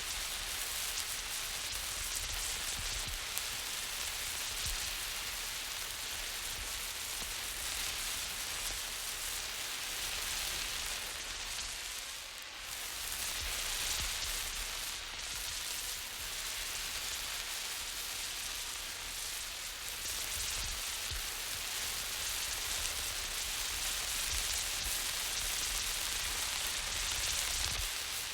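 A burning flare hissing steadily as it is moved about, with a low rumble underneath and a brief dip about twelve seconds in.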